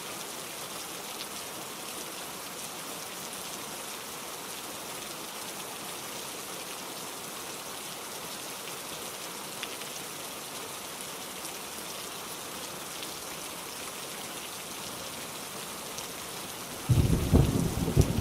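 Steady rain falling as an even hiss, with a loud clap of thunder breaking in suddenly about a second before the end and rumbling on.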